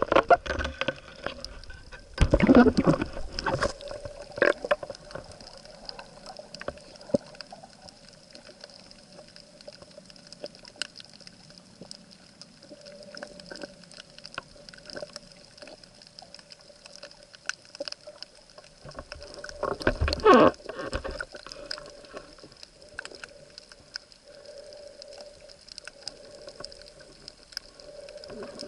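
Sea water heard on a camera's microphone, likely underwater: a faint steady hum with scattered sharp clicks, and two louder noisy water bursts, one about two seconds in and one about twenty seconds in.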